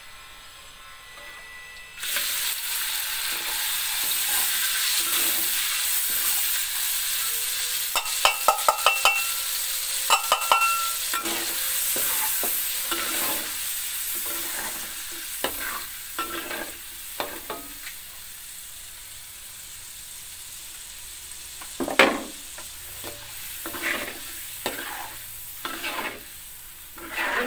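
Ground chili-and-spice paste dropped into hot oil in an aluminium wok about two seconds in and sizzling loudly as it fries, the sizzle slowly settling. A metal spatula stirs and scrapes against the wok, with a quick run of ringing taps near the middle.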